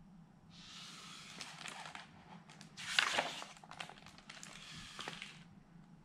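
Paper pages of a picture book rustling as a page is turned and the book is handled, with the loudest swish and a few light taps about three seconds in.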